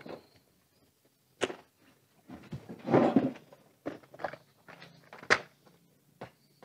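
Clear plastic compartment parts box being picked up and handled: a string of sharp plastic clicks and knocks, with a longer rattling scrape about three seconds in.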